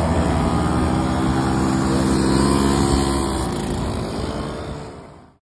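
Small two-stroke Puch Maxi moped engines running as a line of mopeds rides past one after another, their pitch shifting as each goes by. The sound fades out near the end.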